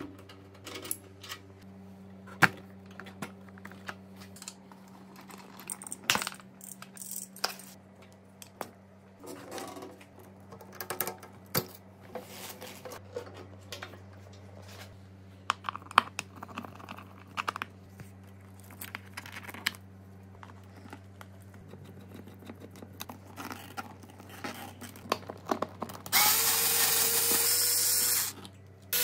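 Scattered clicks and taps of hand tools and small parts being fitted on a motorcycle, over a low steady hum. Near the end a cordless drill-driver runs for about two seconds, driving a screw.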